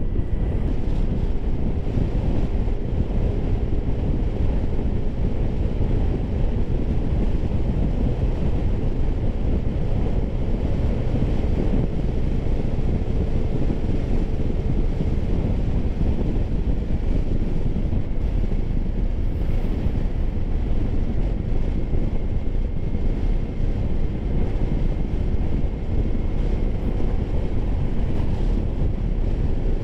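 Steady wind buffeting on a helmet-mounted camera microphone while riding a motor scooter, with the engine's faint hum underneath.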